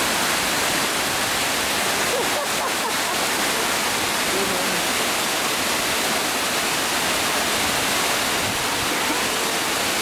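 Waterfall pouring onto rocks and into its pool: a loud, steady rush of falling water.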